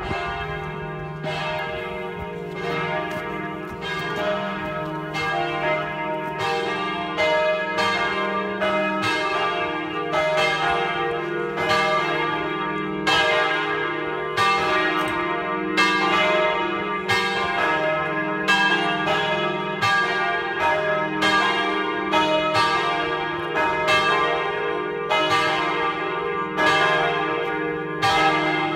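Three large bronze church bells, tuned E-flat, F and G and cast by the Jules Robert foundry of Nancy, ringing together in a continuous peal of overlapping strokes with a long hum between them, rung for mass.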